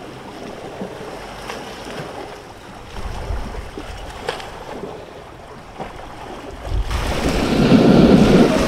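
Sea waves and surf washing, with a deep low rumble coming in about three seconds in and a louder surge of water near the end.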